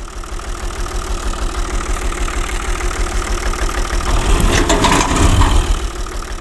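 Tractor engine running with a steady low chug, growing louder about four seconds in and easing off near the end.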